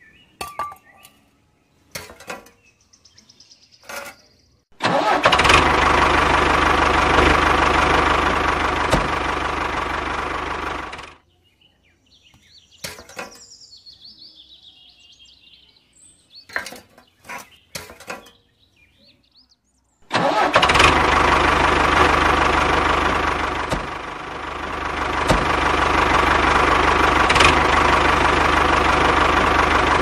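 A model tractor's motor runs with a steady engine-like drone in two stretches: about six seconds long a few seconds in, then again for the last ten seconds. Each stretch starts and stops abruptly. Between them come light clicks and taps as small metal model parts are handled.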